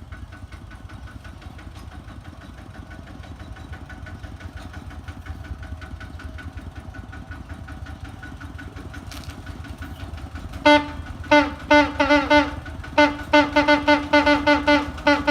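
Kubota tractor's diesel engine running steadily, then about ten seconds in its horn, which sounds like a big truck's, starts blaring in a string of short, loud honks, about three a second.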